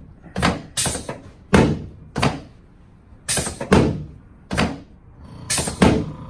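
A run of about nine sharp thumps at uneven intervals, several coming in quick pairs.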